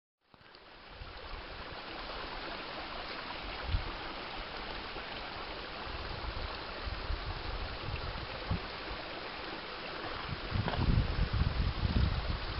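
Steady outdoor rushing noise with irregular low rumbles, which grow stronger about ten seconds in.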